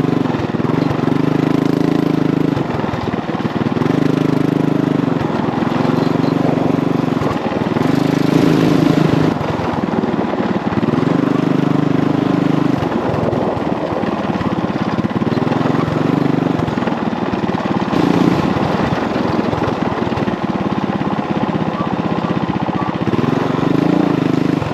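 Small single-cylinder mini bike engines racing, revving up and easing off over and over, each surge lasting a second or two.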